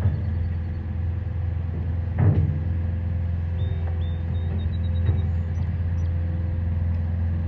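Steady low rumble of a running vehicle engine, with a faint steady higher tone above it. A brief knock comes a little over two seconds in.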